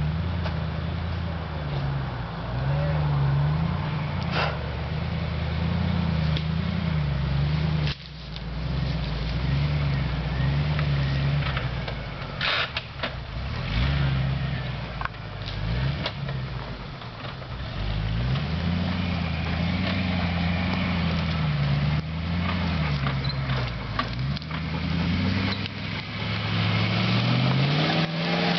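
Motor vehicle engine driving off-road, its revs rising and falling again and again, with a few sharp knocks and clunks along the way.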